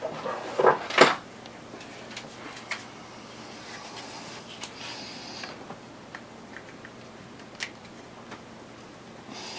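Handling noise of a clamp and a small wooden part: two sharp knocks about a second in, then scattered faint clicks and taps.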